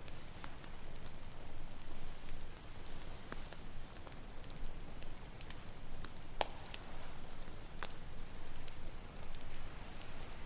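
Campfire crackling with scattered sharp pops and snaps, the loudest about six and a half seconds in, over a steady low wash of ocean waves.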